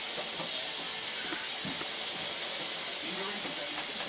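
Cold tap water running in a steady hiss into a plastic colander of freshly boiled elbow macaroni in a steel sink, rinsing the drained pasta as a hand turns it over.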